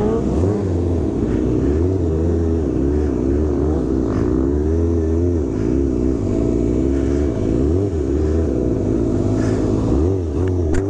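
Motorcycle engines running and revving, the pitch rising and falling over and over.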